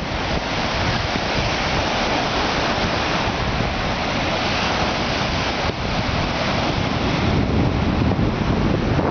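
Lake Michigan waves breaking on the shore in strong wind, with wind buffeting the microphone in a steady, loud rush and low rumble.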